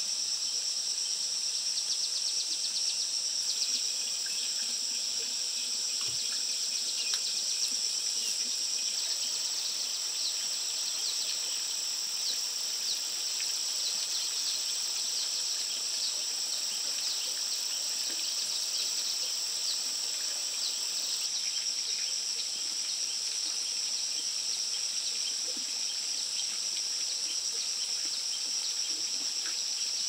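A steady, high-pitched drone from a chorus of insects.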